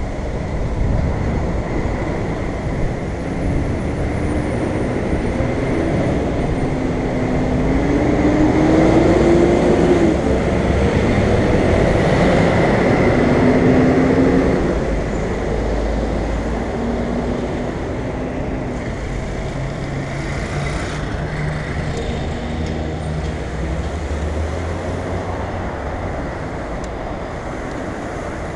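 Busy city street traffic heard from a helmet camera on a bicycle: a city bus's engine running close by over a steady rumble of tyres and road noise. The engine rises in pitch a few seconds in as it pulls away, and is loudest about halfway through before easing off.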